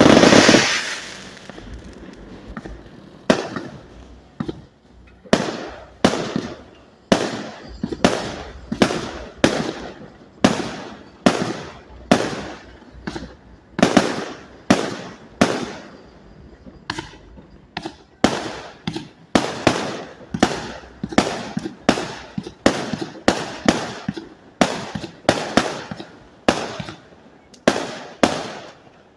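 A fireworks display board firing shot after shot, with one big blast right at the start and then sharp reports at a fairly steady pace of a little over one a second.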